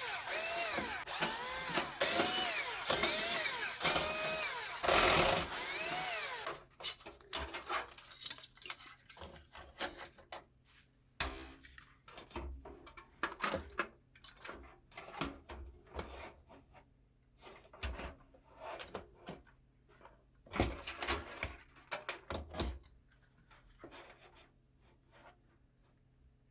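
Small electric screwdriver run in short pulses, its motor pitch rising and falling with each pulse, driving screws. It stops about six seconds in, and scattered clicks and knocks of parts being handled and fitted follow.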